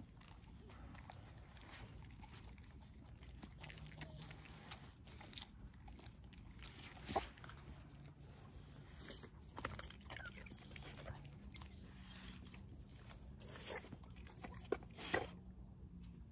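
A dog moving about on its collar and lead: scattered faint scuffs and clinks, with one sharp, louder clink or knock about eleven seconds in.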